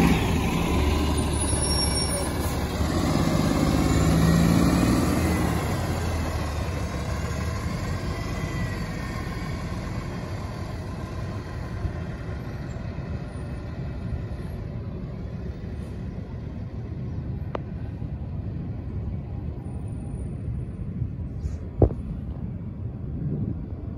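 Cabin noise inside a Gillig BRT transit bus: engine and road noise, louder with a pitched engine drone for the first five or six seconds, then easing to a steadier, quieter rumble. A single sharp click comes about 22 seconds in.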